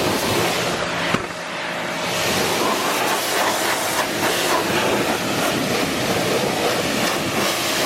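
Small electric pressure washer spraying a water jet against a car, a steady hiss of spray, with a single sharp click about a second in.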